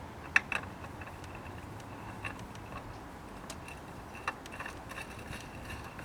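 Scattered light clicks and knocks of a spin-on oil filter being handled and threaded onto the engine by hand, over a faint steady high tone.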